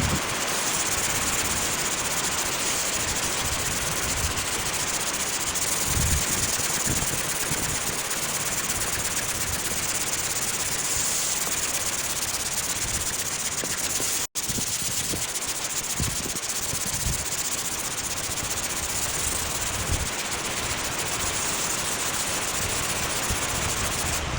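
Steady, dense hiss of rain falling, with scattered soft low thuds; the sound cuts out for an instant about 14 seconds in.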